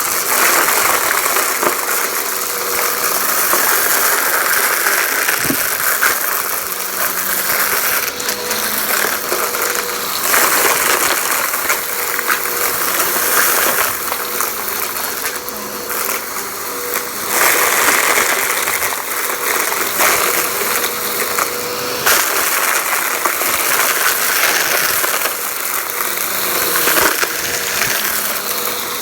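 Vacuum cleaner running with a steady motor whine, sucking up crunchy debris that rattles and crackles through it, the sound swelling and easing every few seconds as the head is pushed back and forth.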